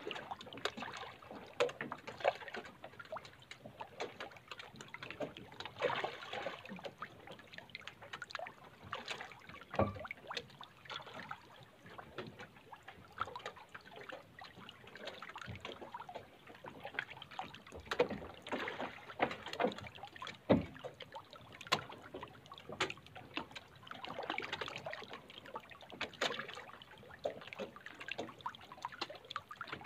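Many farmed fish splashing and thrashing at the water surface in a continuous, irregular patter of splashes and slaps, with a few louder splashes about ten and twenty seconds in.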